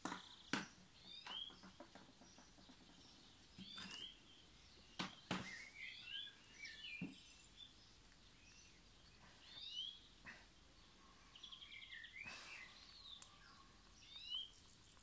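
Small birds chirping over and over, with a few sharp clicks and knocks from items being handled in a cardboard box, the loudest about half a second in and about five seconds in.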